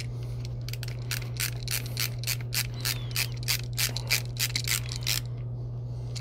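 Screwdriver tightening the brass terminal screw of a light switch down on a looped wire, with a quick, even run of clicks, about four or five a second, that stops shortly before the end.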